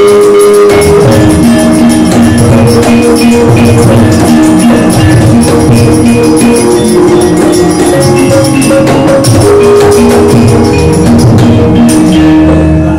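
Javanese gamelan music playing loudly: ringing metallophone notes held and changing over a busy drum beat, with many sharp clacks on top.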